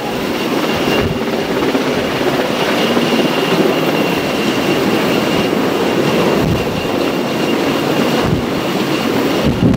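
Helicopter running overhead: a loud, steady rotor and engine rumble with a thin, steady high whine above it.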